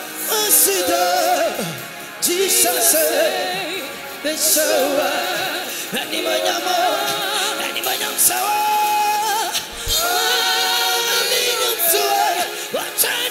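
Male lead vocalist singing a gospel song live into a microphone, with long held notes and vibrato, over a band with keyboard and drums.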